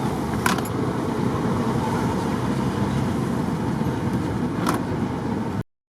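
Bus running on a rough road, heard from inside: a steady low rumble of engine and road noise, with two sharp rattles, one about half a second in and one near the end. The sound starts and cuts off abruptly.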